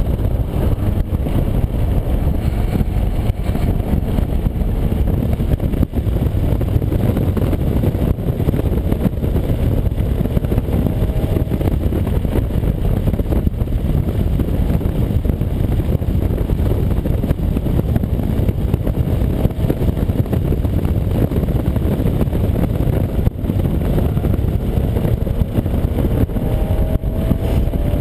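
An Acura NSX's mid-mounted V6 with an aftermarket Comptech exhaust, driven hard on track and heard from inside the cabin as a dense, steady rumble mixed with road noise. Its pitch climbs under acceleration around a third of the way in and again near the end.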